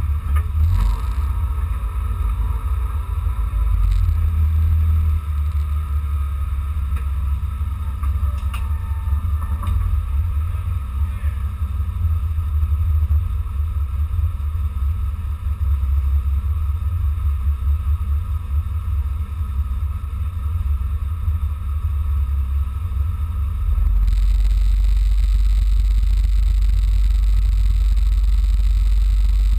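Dacia Logan Cup race car's engine running while the car sits still, heard from inside the caged cabin as a deep, unsteady drone. About three-quarters of the way through it jumps to a louder, steadier drone.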